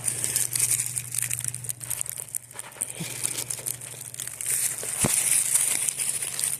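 Close rustling and crinkling handling noise, a dense crackle as grass and soil are worked by hand near the microphone. One sharp tap comes about five seconds in.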